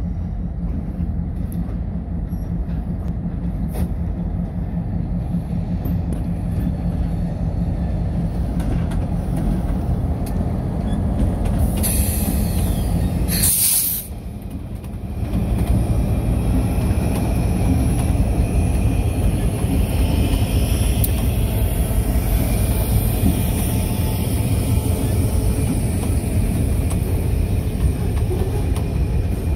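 Diesel freight locomotives of the Finger Lakes Railway rumbling past, followed by a long string of gondola cars rolling by with steady wheel and rail noise. About twelve seconds in there is a short burst of air hiss, then a brief dip before the rolling cars take over.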